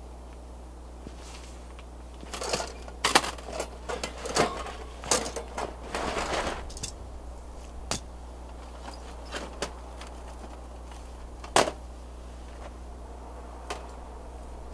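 Metal clinks and rattles from a folding steel fire pit's wire stand and pan being set up. A cluster of clatter comes about two to seven seconds in, then scattered single clinks follow, one sharper than the rest past the middle, over a steady low hum.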